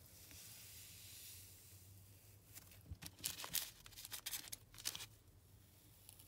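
Faint crackling and tearing of a squishy's sand-like slime filling being squeezed and pulled apart by hand, with a run of short crackles in the middle.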